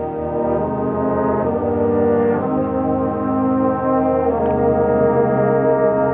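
Fanfare band of brass and saxophones playing slow held chords that change every second or two, swelling louder over the first two seconds.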